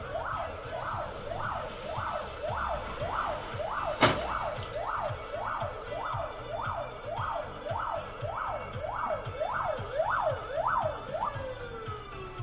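Emergency vehicle siren in a fast yelp, its pitch sweeping up and down about twice a second, then winding down in a falling tone near the end. A single sharp click about four seconds in.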